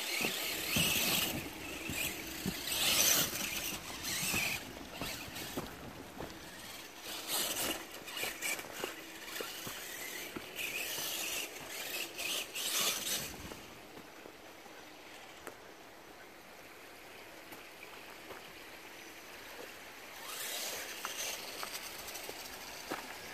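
RC rock bouncer's motor and geared drivetrain, with its RC4WD R3 transmission and transfer case, whining in repeated bursts of throttle as it climbs dirt hills. It goes quieter for several seconds past the middle, then whines again briefly near the end.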